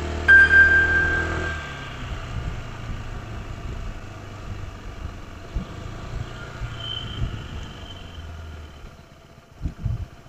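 Honda ADV160 scooter's single-cylinder engine running while riding, a steady low hum that drops away near the end. A loud high steady tone sounds briefly about a third of a second in.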